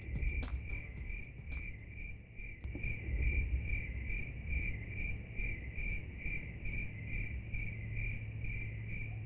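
Crickets chirping in an even, repeated pulse of about three chirps a second, over a low rumble.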